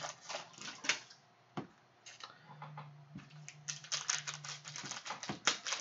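Foil wrapper of a Panini Mosaic trading-card pack crinkling and crackling as it is handled and opened. The sound comes in bursts of quick, sharp clicks, with a lull in the middle.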